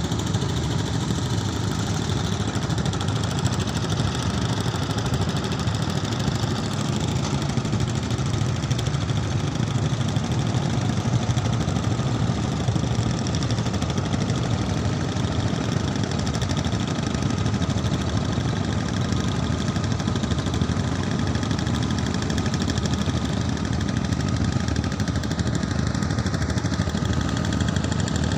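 A boat engine running steadily, a low, even engine sound with a fast pulse that does not change in pace or loudness.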